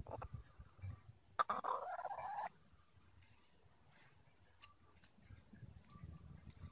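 Easter Egger hens foraging in grass, with faint scratching and pecking clicks, and one hen giving a single call about a second long, about a second and a half in.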